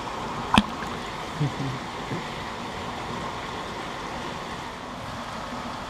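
Steady rushing of water in a koi tank, with one sharp click about half a second in.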